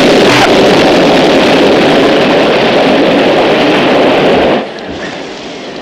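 Loud steady roar of a jet airliner landing, dropping away sharply about four and a half seconds in.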